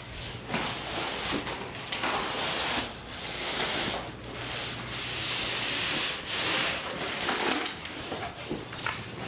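Broom bristles brushing against a wall in repeated strokes, sweeping off wet scraped popcorn ceiling texture.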